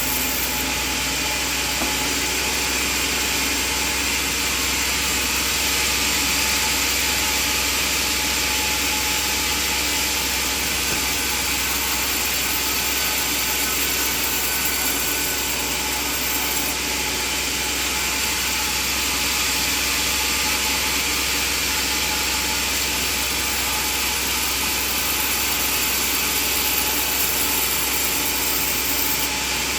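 Band sawmill running with a loud, steady noise that holds even throughout.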